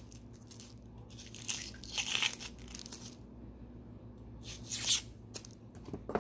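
Dry, papery skin of a sweet onion being torn and peeled off by hand: several short crackling tears with pauses between them.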